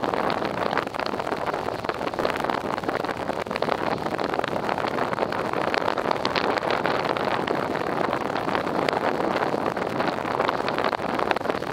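Steady rushing noise of strong wind, crackling on the microphone.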